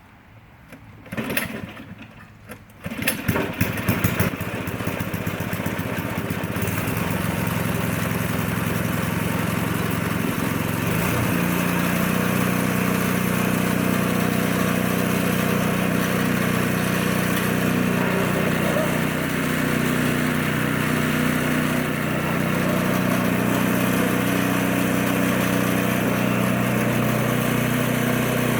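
Ariens ST524 snowblower engine being started: a brief first attempt about a second in, then it catches about three seconds in and runs steadily, settling into an even running note about eleven seconds in.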